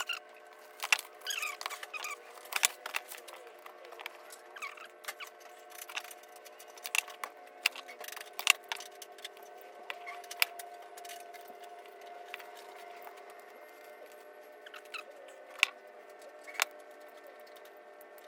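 Electrical outlet parts and small hardware being handled and fitted by hand: irregular sharp clicks and light rattles, thick in the first half and then only a couple near the end, over a faint steady hum.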